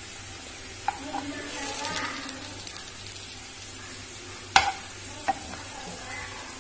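Potato and sweet corn patties sizzling as they shallow-fry in oil in a pan, with a steel spoon clicking against the pan three times as a patty is lifted to be turned, the loudest click about four and a half seconds in.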